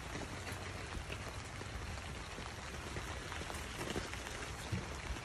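Steady light rain falling on a campsite, an even hiss with scattered drop ticks.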